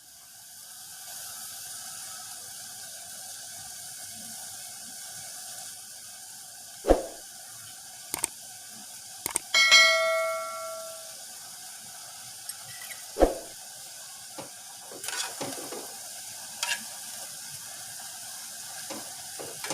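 Pot of water and herbs heating on a stove, hissing steadily as the water nears the boil. There are a few sharp knocks, and a short ringing tone about ten seconds in.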